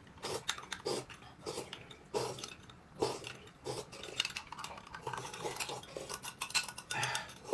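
Eating utensils tapping and clinking against bowls and dishes during a meal, in irregular short clicks.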